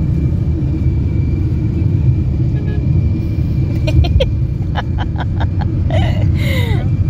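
Steady low road and engine rumble of a moving car, heard from inside the cabin, with a few light clicks about four to five seconds in.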